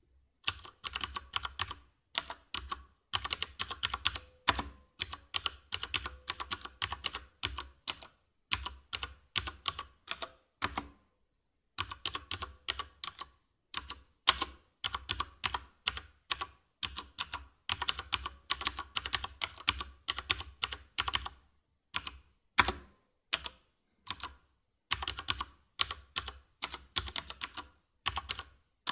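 Rapid clicking and clattering of plastic LEGO bricks being snapped together, in bursts of a second or two broken by sudden short silences.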